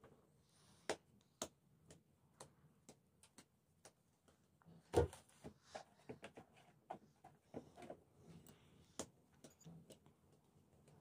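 Quiet, scattered taps and knocks of hands working bread dough: pulling pieces from a plastic bowl and setting shaped dough balls down on a wooden board, with one louder thump about five seconds in.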